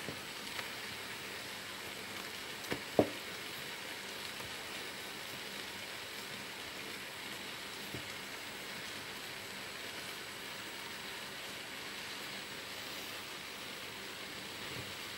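Steady hiss, with two sharp knocks close together about three seconds in, the second much louder.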